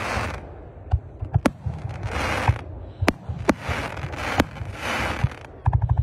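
Fireworks display: aerial shells and rising comets going off in quick succession, a string of sharp bangs several a second with repeated short stretches of hissing between them.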